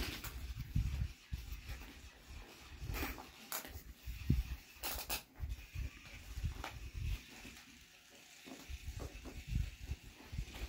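A small dog tussling with a plush toy tied to a strap, dragging it across carpet: irregular low thumps and scuffs with a few short rustling scrapes.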